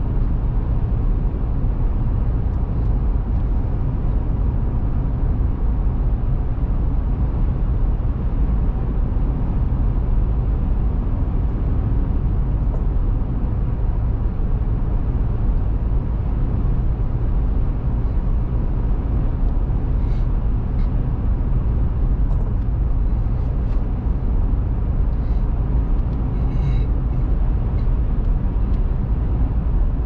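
Steady road and engine noise of a car driving on the highway, heard from inside the cabin as an even, deep rumble. A few faint ticks come about two-thirds of the way in.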